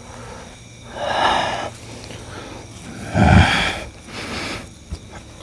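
A man on all fours making harsh, breathy animal-like snorts and growls in three bursts, the loudest a little past the middle, as if possessed by an animal spirit.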